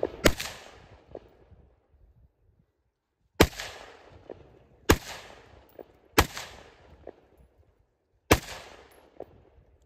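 Five single aimed shots from a CZ 805 BREN rifle, fired slowly at uneven gaps of one to three seconds. Each report trails off in a fading echo.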